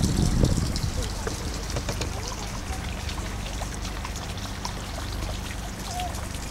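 Outdoor night ambience: faint, indistinct voices of other people over a steady low rumble. The rumble swells briefly at the very start, and small ticks and rustles run through it.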